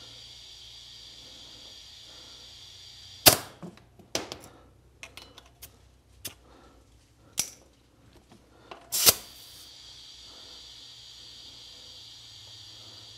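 Compressed air from a shop compressor hissing steadily through an air chuck into a motorcycle tyre's valve. About three seconds in, the hiss cuts off with a sharp loud pop as the chuck comes off, followed by a few small clicks. Near nine seconds there is a short loud burst of air as the chuck goes back on, and the steady hiss resumes while the tyre fills.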